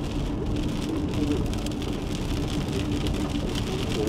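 Rain pattering on a stopped vehicle, over the steady hum of its running engine.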